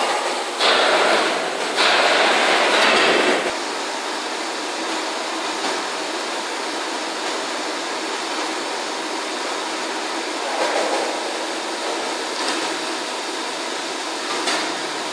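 Heavy-duty Hwacheon CNC lathe turning a convex roll: steady machining noise, with two louder rushes of noise in the first few seconds.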